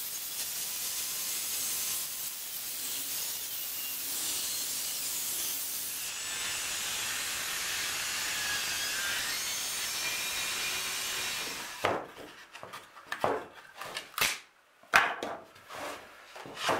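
Table saw running and cutting through a block of timber, a steady high-pitched sound that cuts off suddenly about twelve seconds in. Then scattered knocks and clatter of the cut wooden wedges being handled on the steel saw table.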